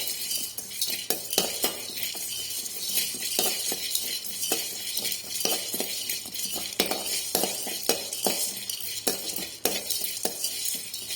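A spoon stirring cumin seeds and black peppercorns as they dry-roast in a pan, with frequent clinks and scrapes of the spoon against the pan over a steady hiss.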